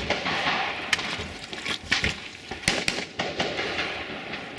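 Scattered rifle shots on a shooting range: a string of sharp reports at irregular intervals, some louder and closer, others fainter.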